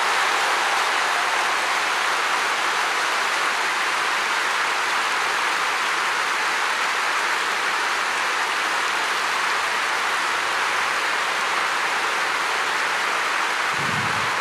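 A large stadium crowd applauding steadily, a dense, even wash of clapping from many thousands of hands.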